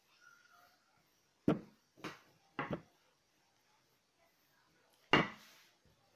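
Wooden rolling pin knocking against the table while rolling out a sheet of dough: a few separate knocks, the loudest about five seconds in.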